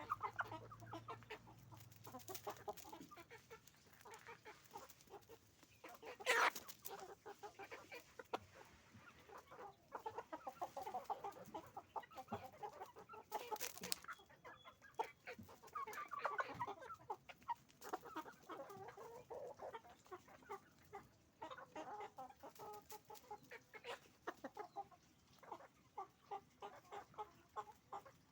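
A flock of farm chickens, hens and roosters, clucking continuously in many short overlapping calls. A brief, louder sharp sound stands out about six seconds in, and another comes around fourteen seconds.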